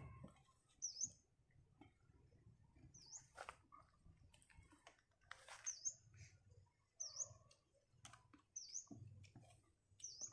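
A small bird chirping faintly, one short high down-and-up note repeated about six times, every one to two seconds. Faint clicks and rustles lie between the chirps.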